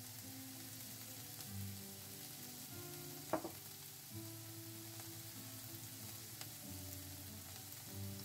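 Chopped onions sizzling gently in oil and butter in a frying pan, a steady soft hiss, with a single sharp clink a little over three seconds in.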